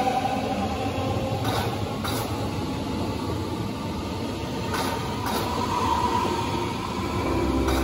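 Berlin S-Bahn electric train running past at close range: a steady rumble of wheels on rail with several sharp clacks over the rail joints. A thin whine rises briefly about six seconds in.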